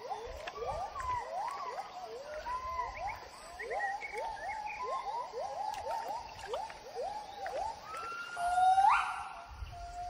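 Gibbons singing: a rapid run of short whooping calls, each rising in pitch. Near the end a longer, louder note climbs steeply.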